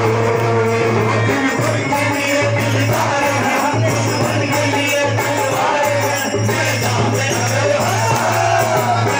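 Rajasthani folk song played loud through a loudspeaker: a singer's voice over a rhythmic accompaniment.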